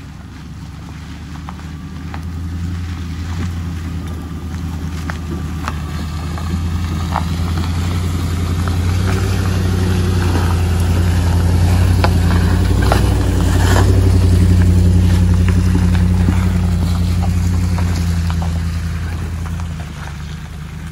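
A vehicle's engine running under way, steady and low, growing louder to a peak about two thirds in and easing off near the end, with scattered clicks and knocks.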